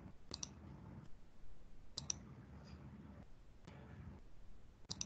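A few faint, sharp clicks, several coming in quick pairs, over a faint low hum of background noise.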